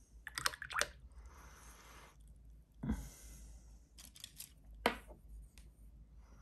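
Paintbrush and painting supplies being handled: a few clusters of sharp clicks and taps, a short rustling swish, and a soft thump about three seconds in.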